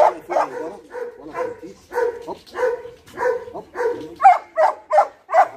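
Dog barking repeatedly, about two barks a second; from about four seconds in the barks come louder and sharper.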